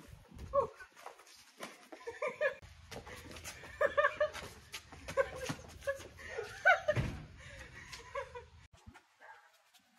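Short repeated bursts of laughter during boxing sparring, mixed with scattered sharp taps and a thump about seven seconds in, from gloves and feet.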